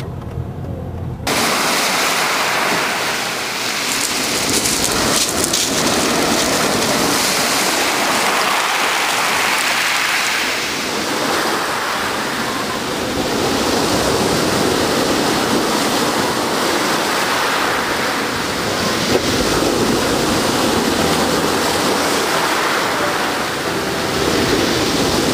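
Sea surf: waves breaking and washing over rocks and a pebble shore, a loud, continuous rushing that cuts in suddenly about a second in.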